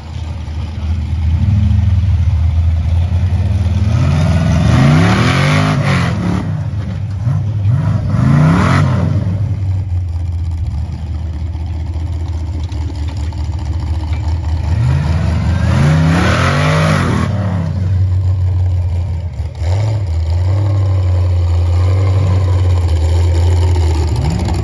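Off-road Jeep engines running low, then revving up and back down in repeated bursts as they climb steep sand piles, with tyres spinning in loose sand during the hardest pushes.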